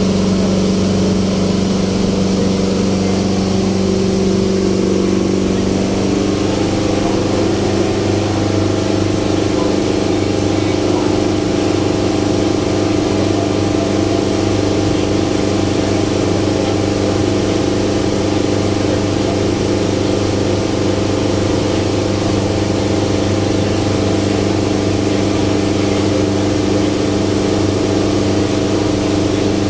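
Ferry boat engine running steadily, heard from on board; its note rises about five seconds in as the engine speeds up, then holds steady.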